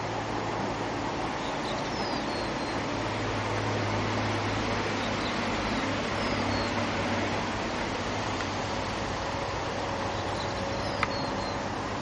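Steady rushing roar of whitewater river rapids, with a low steady hum beneath it. A few faint high chirps come through, and there is one sharp click near the end.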